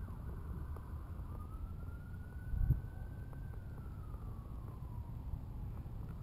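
Faint siren wailing slowly up and down, one full rise and fall with the next rise starting near the end. Under it a steady low rumble of wind and camera handling, with a soft bump a little before the middle.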